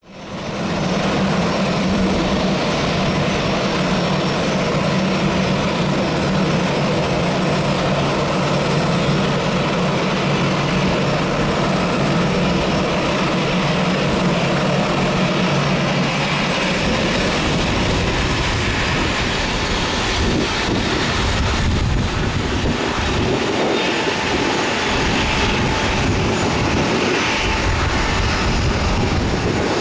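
Airbus A319 airliner landing: continuous loud jet engine noise with a steady low hum as it comes in over the runway. About seventeen seconds in the hum gives way to an uneven low rumble as the aircraft rolls out along the runway.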